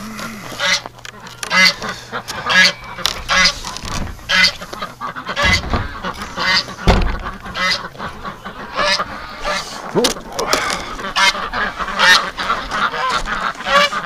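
A flock of domestic ducks quacking and calling, many short overlapping calls without a break. Two dull thuds come about five and a half and seven seconds in.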